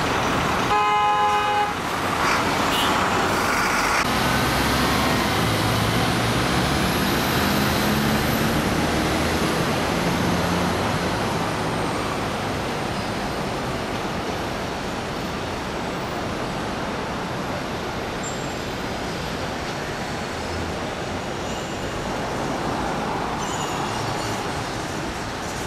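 City road traffic: a vehicle horn honks once, briefly, about a second in, then the steady noise of passing cars and buses with engine rumble. Near the end a metro train on an elevated viaduct begins to be heard over the traffic.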